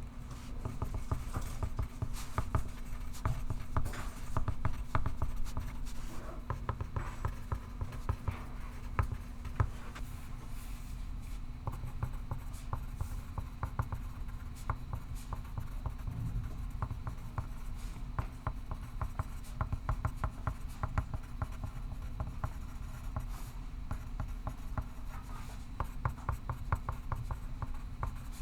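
Pencil writing on paper: quick, continuous scratching strokes, over a steady low hum.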